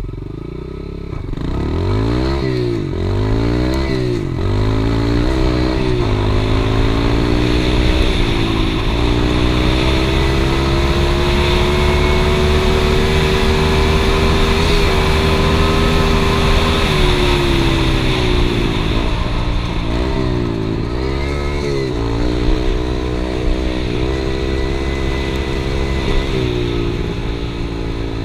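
Yamaha TT-R110E dirt bike's small single-cylinder four-stroke engine running under way. It revs up and falls back several times, holds steady revs for several seconds midway, then rises and falls several more times.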